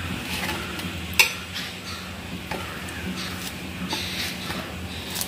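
Wet mushroom pieces being handled in a steel plate and cut with a kitchen knife, giving a string of soft clicks and taps, one sharper click a little over a second in. A low steady hum runs underneath.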